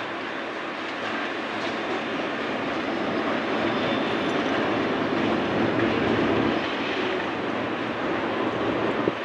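BNSF intermodal freight cars rolling past on the rails: a steady rumble and clatter of steel wheels, swelling for a few seconds mid-way, with a single sharp click near the end.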